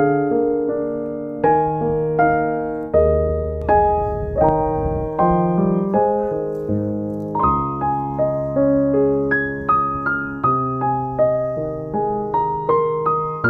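Slow piano music: single notes and chords struck one after another and left to ring out.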